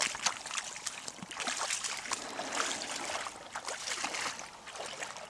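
Footsteps wading through shallow water, with irregular sloshing and splashing that eases off near the end.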